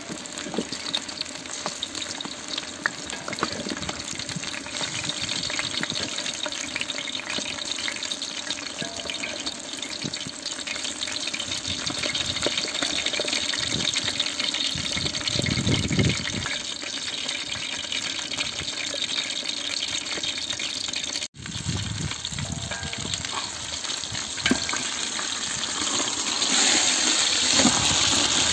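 Hot oil sizzling and crackling steadily around a whole masala-coated fish shallow-frying in a wide pan, louder over the last couple of seconds.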